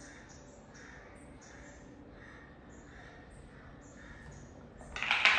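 Faint short bird chirps repeating a couple of times a second, then one loud, harsh call near the end.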